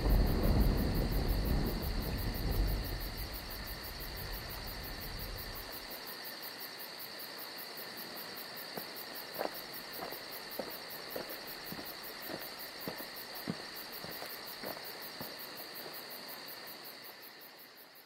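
Insects chirping steadily in a fast, even pulse, while a low rumble dies away over the first few seconds. Faint scattered clicks come in from about halfway, and the whole ambience fades out near the end.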